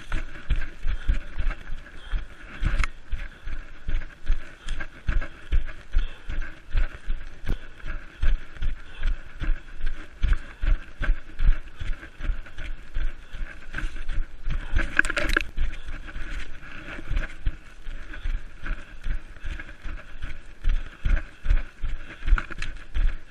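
A runner's footfalls through forest undergrowth, picked up by a body-worn camera, about three dull thuds a second at a running stride, with a steady rustle of vegetation and clothing. About fifteen seconds in there is a louder rustling burst.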